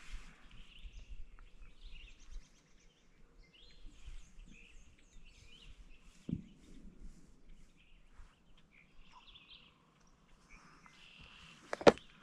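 Faint scattered bird chirps over quiet outdoor ambience, with a soft knock about six seconds in. Near the end, one sharp loud click as the latch of a clear plastic tackle box snaps.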